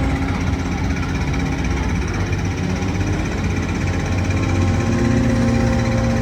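Carnival machinery running with a steady low drone and an engine-like hum.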